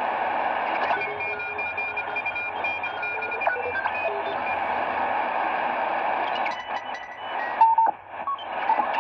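Degen DE1103 shortwave receiver tuned step by step across the 80-meter amateur band: steady static hiss with steady whistling tones that jump to new pitches at each tuning step. The hiss drops briefly near the end, leaving clicks and short tones.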